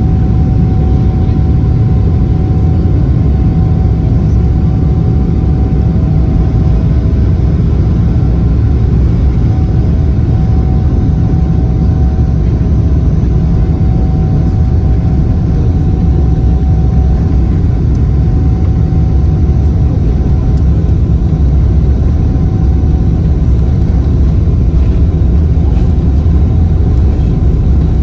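Airliner cabin noise as the plane rolls along the ground: the jet engines run steadily under a loud, even low rumble, with a faint steady whine that comes and goes.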